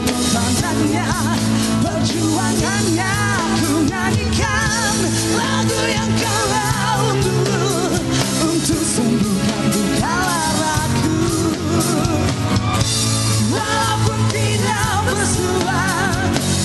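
Rock band playing a song: drums, bass and guitar under a wavering melody line, with singing heard.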